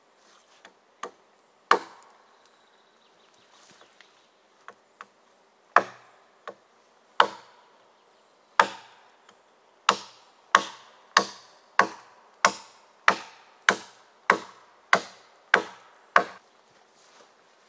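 Gränsfors Bruk Wildlife Hatchet chopping wood. Scattered, uneven strikes come first, then a steady run of about a dozen blows at roughly three every two seconds in the second half.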